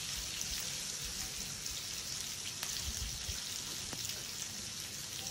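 Tempering spices (chana dal, urad dal, cumin, curry leaves and chilies) sizzling in hot oil in a frying pan: a steady hiss with a few faint scattered pops.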